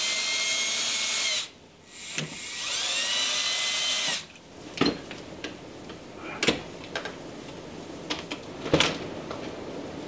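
Cordless drill-driver backing screws out of a storm door's hinge rail: its motor whines steadily for about a second and a half, stops, then spins up and runs for about two seconds more. After that come a few sharp clicks and knocks.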